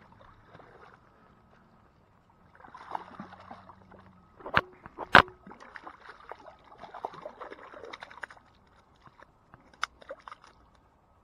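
Shallow water sloshing and gurgling among shoreline rocks, broken by a few sharp slaps or knocks, the two loudest close together about halfway through.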